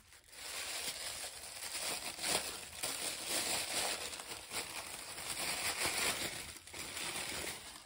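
Packaging crinkling and rustling steadily as a boxed cosmetic product is handled and unwrapped by hand.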